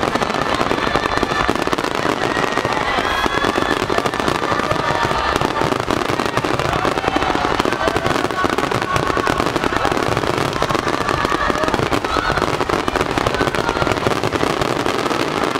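Fireworks finale: a dense, unbroken barrage of shell bursts and crackling, going on without a pause.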